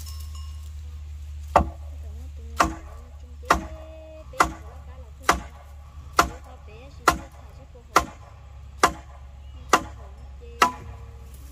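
Eleven sharp striking blows, evenly spaced a little under one a second, over a steady low hum.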